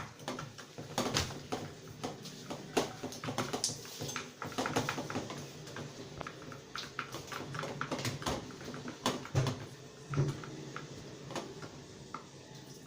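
Homemade slime being stirred and mixed with a stick in a bowl: a run of irregular sticky clicks and taps.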